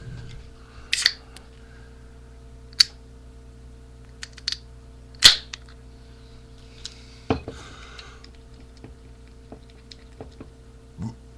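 Scattered short clicks and knocks, about six in all and the loudest about five seconds in, over a steady low hum.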